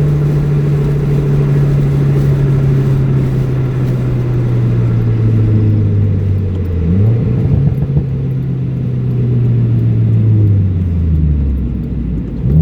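2016 Subaru WRX's turbocharged 2.0-litre flat-four with an ETS cold air intake, heard through an open window while driving: the engine note falls slowly, jumps up sharply about halfway through, holds, then drops again near the end, over road and wind noise.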